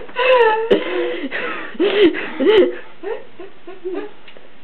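A person's voice laughing and making short wordless vocal sounds, with a few sharp clicks in between.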